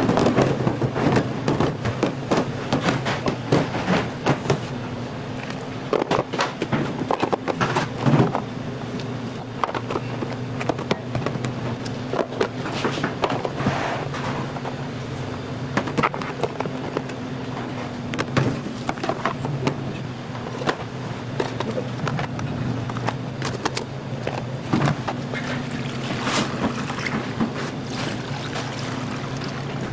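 Plastic trays knocking and clattering on a stainless steel worktable as raw crabs are handled and tipped into a plastic tub, over a steady low machine hum.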